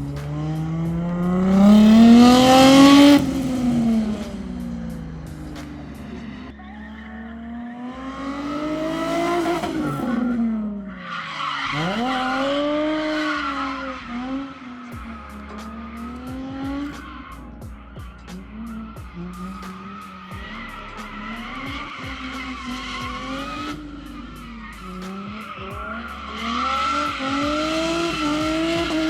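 Drift car's engine revving up and down in second gear while the tyres squeal through slides. The revs peak loudest about two to three seconds in, climb again near the ten-second mark and drop sharply, then rise and fall in smaller swings.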